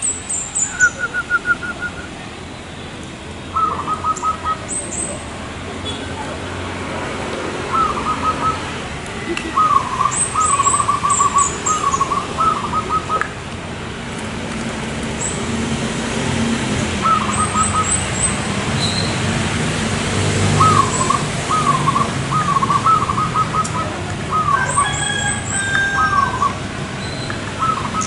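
Zebra doves (perkutut) cooing: short rippling phrases of quick, staccato coos, repeated every few seconds. Thin high chirps from other small birds sound above them, over a low background rumble.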